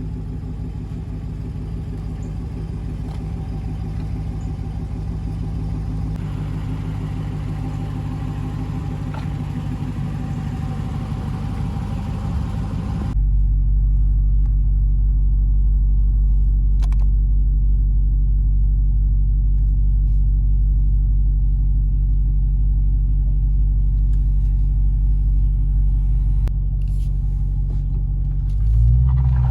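Dodge Challenger SRT Hellcat Widebody's supercharged 6.2-litre HEMI V8 idling steadily through its stock exhaust. About halfway through, the sound turns abruptly deeper and duller. A short rev begins at the very end.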